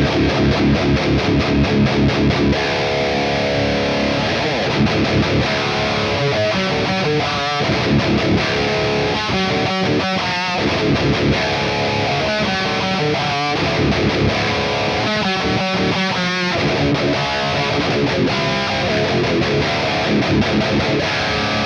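High-gain distorted electric guitar, a Schecter C1 Elite with Fishman Modern ceramic pickups tuned to drop C, played through a Mooer Brown Sound 3 preamp pedal with cab simulation. It plays heavy downtuned metal riffs: rapid chugging in the first couple of seconds, then ringing chords and riffs.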